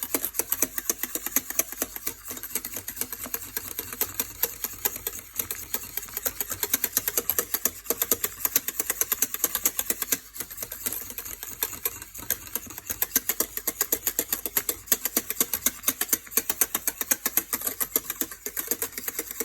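Ice cream mixture being beaten in a bowl: a fast, even clicking that runs without a break.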